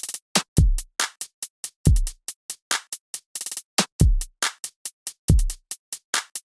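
Electronic drum beat with no vocals: deep kick-drum hits that drop in pitch, falling roughly every one to two seconds, over quick, crisp hi-hat ticks.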